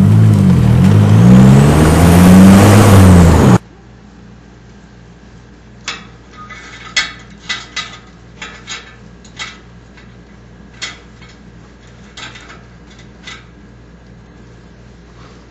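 A car engine revving up and down, with a high whistle rising and falling over it from a fake turbo whistler fitted to the exhaust muffler. It cuts off abruptly after about three and a half seconds, leaving a low steady hum with scattered clicks and knocks.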